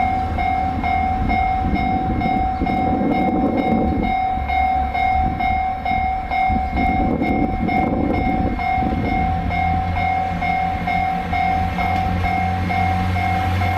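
Railway level crossing alarm ringing with a rapid, evenly repeated electronic tone, over the low rumble of a train, which swells twice and gives way to a steady low hum in the second half.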